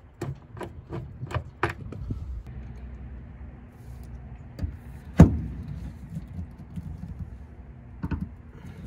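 Hand rivet nut tool being worked on the pickup bed floor: a quick run of metal clicks, about three a second, for the first two seconds, then a single loud sharp snap about five seconds in and a few lighter clicks near the end, over a steady low hum.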